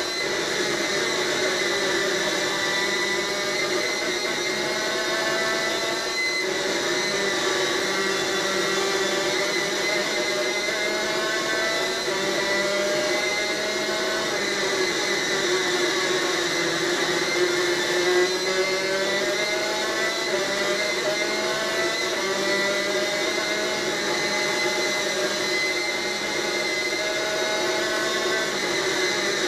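Superkart's two-stroke engine at racing revs, heard from on board: the pitch climbs, drops back and climbs again over and over as it shifts up through the gears, and falls away in one longer slide about halfway through.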